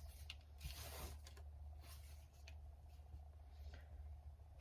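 Faint soft rustles and snips of ribbon being handled and cut with scissors, over a low steady hum.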